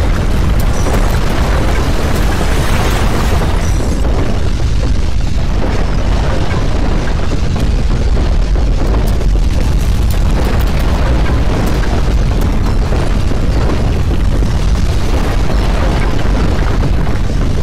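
Loud, steady low rumble of earthquake ground shaking, a sound effect standing for the magnitude 8.0 quake's shaking at its height.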